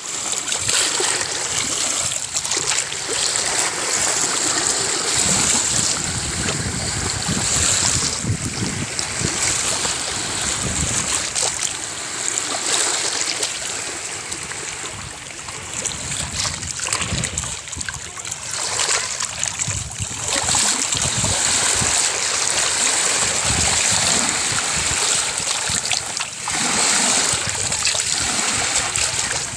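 Small sea waves lapping and washing over shallow pebbles and stones at the water's edge, the wash swelling and easing from moment to moment.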